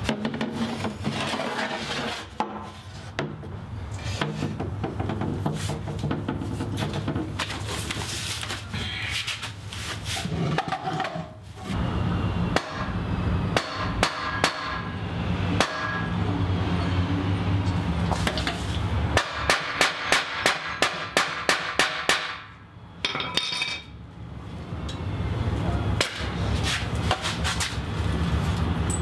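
Hammer blows on a nail backed against an old sewing machine head used as an anvil, fixing the shield boss. Scattered taps give way a little past the middle to a quick run of about ten blows, roughly three a second.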